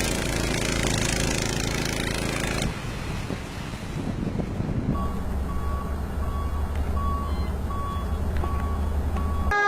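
Heavy truck engine running, with a reversing alarm beeping steadily about twice a second from about halfway through. Before that there is a stretch of engine and road noise that cuts off abruptly, and a siren-like horn sounds at the very end.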